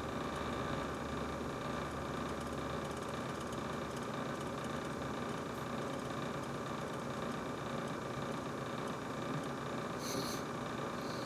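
Brand new GE refrigerator running: a steady mechanical hum with a few held tones. A low rumble fades about four seconds in, and there is one short high click near the end.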